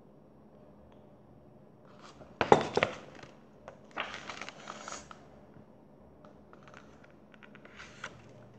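A paper picture book being handled close to the microphone: a loud knock with rustling of pages about two and a half seconds in, a second rustle of pages about four seconds in, then soft taps and clicks.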